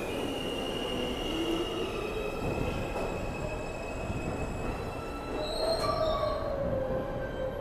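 R160-series subway train braking into a station, its wheels squealing in steady high tones over the rumble of the cars. About six seconds in, a lower tone swells and slides downward as the train comes to a stop.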